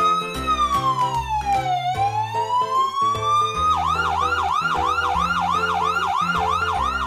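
Ambulance siren sound effect: a slow wail rising and falling in pitch, switching about halfway through to a fast yelp of about four sweeps a second, over background music.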